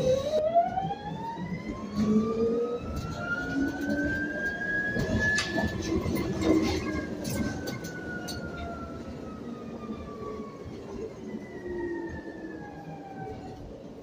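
Electric traction motor of a Proterra Catalyst E2 bus (UQM 220 kW motor) whining as the bus pulls away. The pitch rises steadily for about five seconds, then falls slowly as the bus slows. Light clicks and rattles from the cabin come through underneath.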